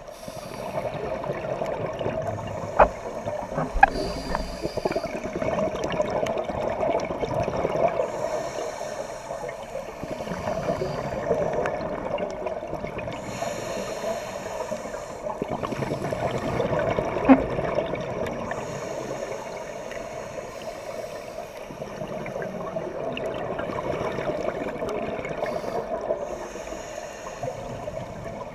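Scuba diver breathing through a regulator underwater: a hiss on each inhalation every few seconds, alternating with the bubbling of exhalations. Three sharp clicks stand out.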